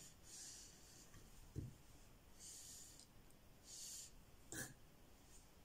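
Sharpening stone on the guide rod of an Edge Pro–style knife sharpener drawn in soft, scratchy strokes along a knife edge, one stroke every second or so. A low thump comes about a second and a half in, and a sharper click about four and a half seconds in.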